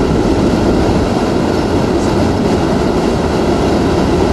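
Category 4 hurricane winds and driving rain: a loud, steady rush of wind with no let-up, deepest in the low end.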